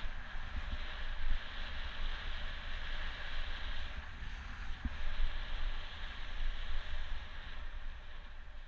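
Wind buffeting the microphone of a camera carried on a moving bicycle: an uneven low rumble with a few thumps, over a steady hiss.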